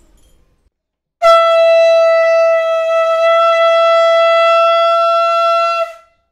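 Conch shell (shankh) blown in one long, steady note lasting about five seconds, starting about a second in and cutting off near the end; it is sounded to close the aarti.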